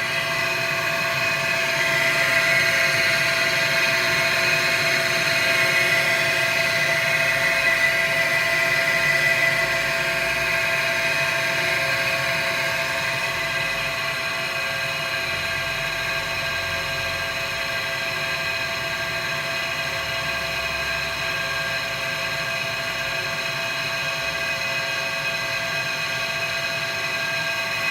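Takagi TK-Jr tankless water heater's fan running with a loud whirring whine, slightly louder in the first ten seconds and then steady, and staying on after the hot water has been shut off. The noise is the sign of a broken fan; a new fan cured it.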